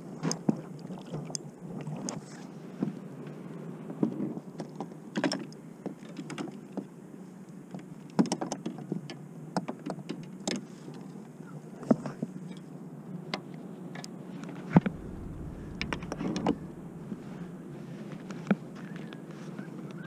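Scattered sharp clicks and knocks, as of fishing gear being handled on a kayak, over a steady low hum, with a brief low thud about three quarters of the way through.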